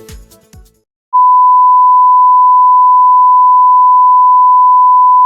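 Electronic background music with a beat dies away in the first second; then, after a short silence, one loud, steady, high-pitched electronic beep starts and holds without a break.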